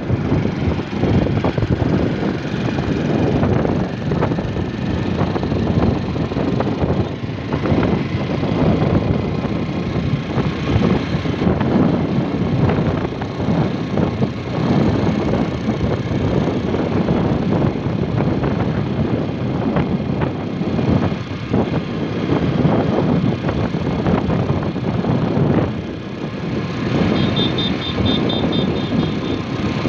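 Motorcycle running at road speed, its engine and the rush of wind over the microphone making a loud, steady noise. A short run of high-pitched chirps comes near the end.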